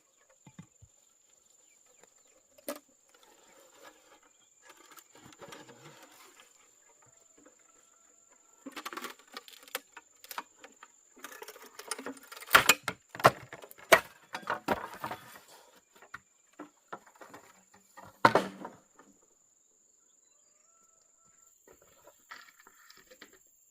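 Intermittent rustling and knocking of hand work with wood, with a cluster of sharp strikes in the middle and one more a few seconds later, over a steady faint high-pitched whine.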